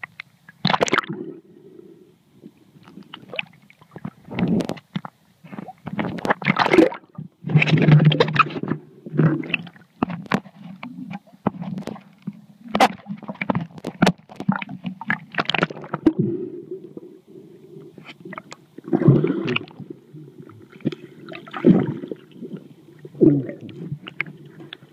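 Muffled water sloshing and gurgling, heard through an iPhone's waterproof housing as it dips in and out of the water, with irregular knocks and scrapes from handling the case.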